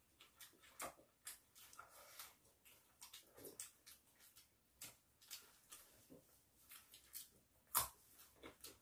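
Faint eating sounds: chewing and lip smacks with small clicks of chopsticks, scattered irregularly, the sharpest click near the end.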